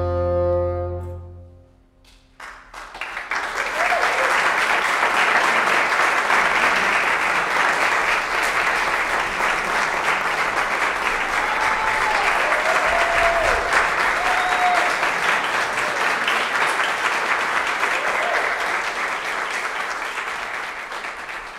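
The closing chord of a bassoon with harpsichord and double bass sounds and dies away. After a short pause, an audience applauds steadily, and the applause fades out near the end.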